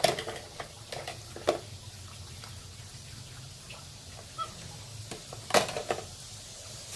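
Thin stream of water running from a toy sink's faucet, a steady hiss, with light clicks and knocks of plastic toy dishes being handled by a capuchin monkey. A few sharp knocks come in the first second and a half, and a louder cluster comes about five and a half seconds in.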